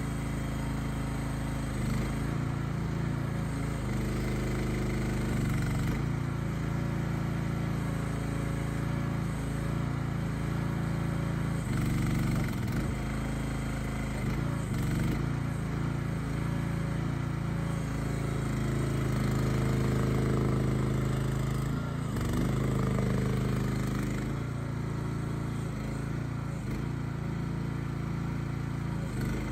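Small single-cylinder gas engine of a mini excavator (Briggs & Stratton 420cc) running steadily, its note shifting briefly several times and growing a little louder for a few seconds near the middle.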